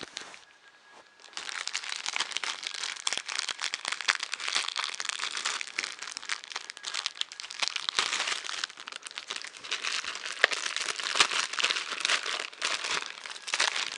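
Plastic bag packaging crinkling and rustling continuously as printer parts are taken out of it, starting about a second in after a brief lull.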